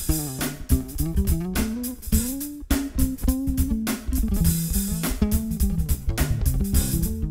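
Background music: a band track led by bass guitar and guitar over a steady beat.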